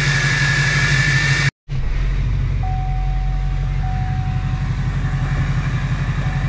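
LBZ Duramax 6.6-litre V8 turbo diesel idling on just a downpipe with no exhaust, with a steady high whistle from its freshly rebuilt, upgraded turbo. About a second and a half in the sound cuts off briefly, then the same idle goes on heard from inside the cab, deeper and muffled, the whistle much fainter.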